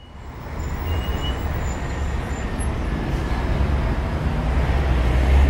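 A steady low engine rumble with a broad noisy hiss above it, fading in over the first second.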